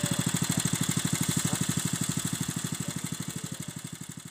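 Honda WB30XN water pump's small single-cylinder four-stroke engine running steadily with an even, rapid exhaust beat, fading gradually over the second half.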